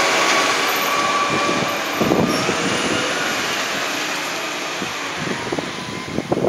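CCC Labrie Automizer side-loading garbage truck driving off, its engine noise slowly fading with distance. There is a short, louder burst about two seconds in.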